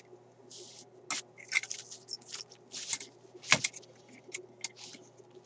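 Scattered small clicks and scrapes of fingers working a stuck push-on wire connector loose from the circuit board in a Philco car radio's metal chassis, with one sharper click about three and a half seconds in. The connector is held by corrosion.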